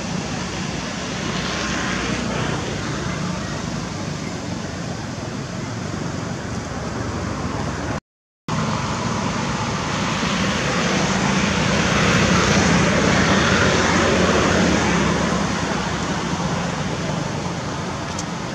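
Steady hum of road traffic that swells a little past the middle as a vehicle passes. The sound drops out completely for half a second about eight seconds in.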